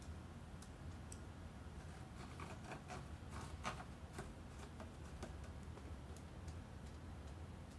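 A cat clawing a sisal-rope scratching post: a cluster of faint, quick scratchy rasps and clicks from about two seconds in until about four and a half seconds, over a low steady hum.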